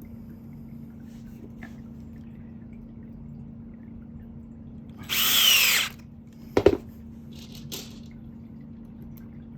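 Power drill driving a small screw through a metal mounting plate into a wooden leg: one short burst of under a second about five seconds in, followed by a sharp knock. A faint steady hum runs underneath.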